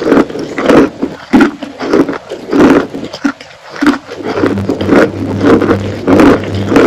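Chewing a mouthful of wet chalk: irregular wet crunches, several a second. A low steady hum comes in a little past halfway.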